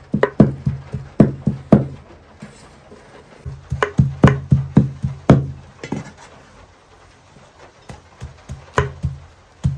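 Kitchen knife chopping on a wooden cutting board: bursts of quick, sharp chops, about two or three a second, broken by short pauses.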